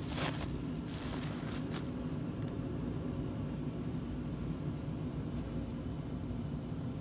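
Tissue paper crinkling as a cat bites and paws at it, loudest in the first half-second and trailing off in fainter crackles by about two seconds in, over a steady low mechanical hum.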